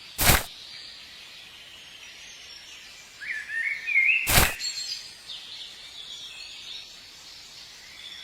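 Faint bird chirps, with two brief loud sounds about four seconds apart.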